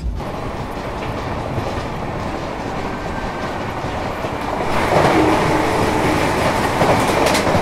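Express train running at speed, heard from an open door, its wheels clattering over the rails. About five seconds in, the noise swells as another train passes close by on the adjacent track.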